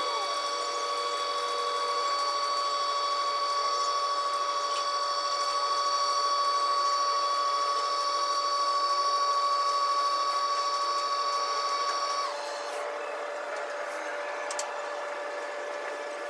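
Steady mechanical whine of the segment-launching gantry's hoist winch lifting a precast concrete viaduct segment. Its pitch and level drop slightly about twelve seconds in, leaving a lower whine running on.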